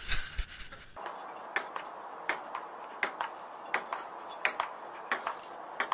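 Table tennis rally: a celluloid ball clicking against the table and the paddles in quick pairs, a bounce and then a hit, repeating about every 0.7 s, starting about a second in.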